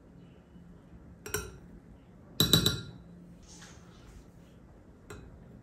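Metal teaspoons clinking against a glass mixing bowl as cornflour is tipped and tapped off into it: a light clink about a second in, a louder run of several ringing clinks about two and a half seconds in, and a light clink near the end.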